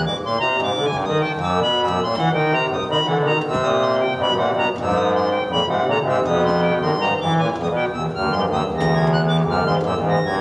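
An 1868 Ph. J. Trayser two-manual harmonium, a reed organ, playing a courante: a quick run of short notes over held lower notes, without a break.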